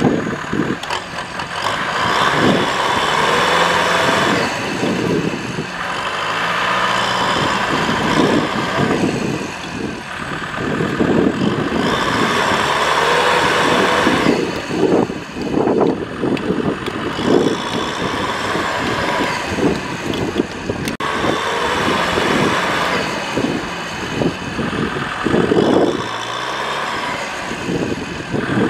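Farm tractor's diesel engine revving up and easing off again and again, every few seconds, as it labours to pull free of deep mud.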